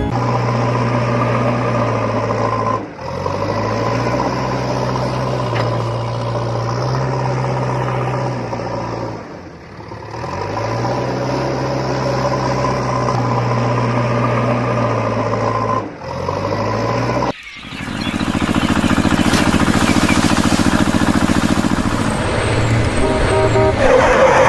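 Truck engine sound effect running steadily, with a few short drops in level. From about two-thirds of the way through it changes to a rougher, lower engine rumble.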